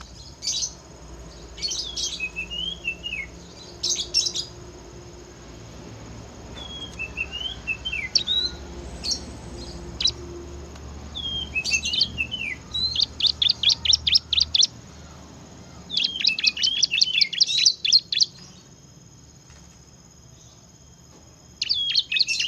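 Bar-winged prinia (ciblek) singing in bouts of sharp high chirps and short downward-sliding phrases, with fast rattling trills of rapidly repeated notes in the second half. The song stops for about three seconds near the end, then starts again.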